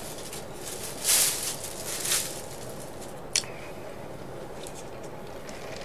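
Handling of a paper fast-food wrapper while eating: two short rustles about one and two seconds in, then a single sharp click, over a steady background hiss.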